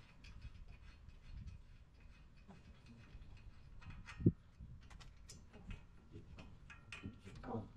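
Faint, irregular metallic clicks and ticks as the front suspension's upper control arm and steering knuckle are handled and worked apart, with one sharper clink about four seconds in.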